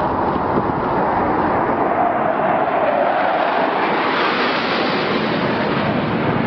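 Sukhoi Su-24 jet making a low pass over a warship, its twin turbojet engines heard as a loud, steady rush whose pitch drops about halfway through as it goes by.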